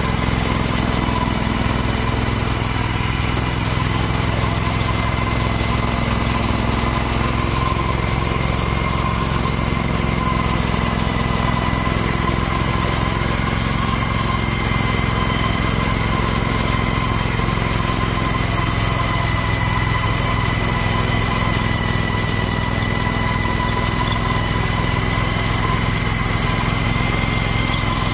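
Garden tractor's Kohler CH730S 25 hp V-twin engine running steadily under load, driving a front-mounted Simplicity snowblower through deep snow, with a steady high whine alongside it.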